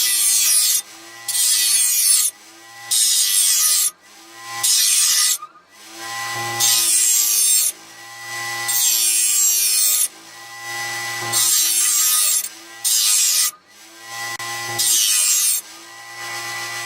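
Bench grinder's coarse wheel grinding the cutting edge of a steel lawn mower blade in about nine separate passes, each a second or so of loud, hissing grind. The grinder's motor hums steadily between passes.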